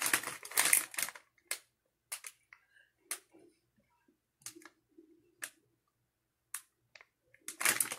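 Plastic packaging crinkling as it is handled: a dense rustle in the first second, then scattered sharp crackles and clicks.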